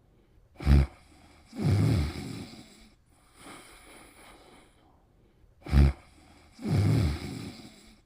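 Snoring in two breaths about five seconds apart. Each is a brief sharp snort followed by a longer, low snore of about a second, with faint breathing between.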